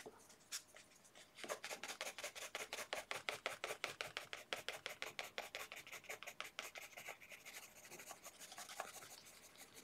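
Pencil scratching on sketch paper in quick, short, even strokes, several a second, as an eyebrow is sketched in. The strokes begin about a second and a half in and grow fainter near the end.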